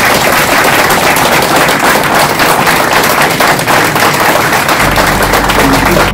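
A roomful of people applauding: dense, steady clapping.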